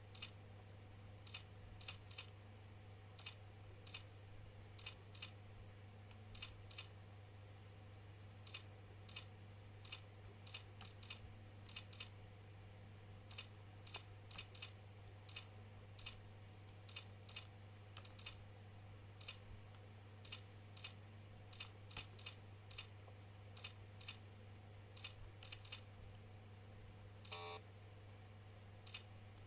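Faint keystroke clicks on a keyboard, short high ticks at an uneven pace of about one or two a second, over a steady low hum. A short buzzing tone sounds once near the end.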